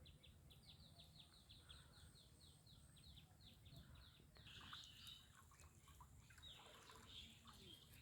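Faint bird call: a rapid series of short, falling high notes, about seven a second, for roughly four seconds, followed by a few scattered chirps.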